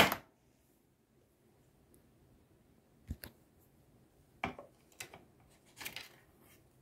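About five short, sharp clicks and scrapes spread across a few seconds, the loudest at the very start, from the plastic pieces and packaging of a toy cash register and pretend food set being handled.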